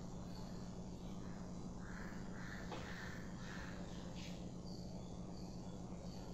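Quiet background with a steady low hum; a crow caws four times in quick succession about two to four seconds in, over faint repeated high chirps.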